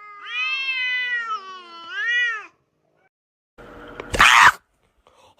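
A domestic cat meowing: one long, drawn-out yowl that bends down and swells back up before stopping. About a second and a half later comes a brief, loud noisy burst.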